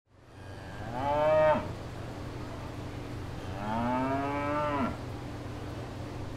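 A cow mooing twice, a short call about a second in and a longer one in the middle, each rising and then dropping in pitch at the end, over a steady low hum.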